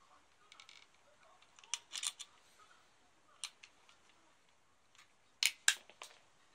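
Sharp plastic clicks and taps from a handheld YAZAWA MW01SV battery checker being handled and set down. There is a quick cluster of clicks about two seconds in, a single click a little later, and the three loudest near the end.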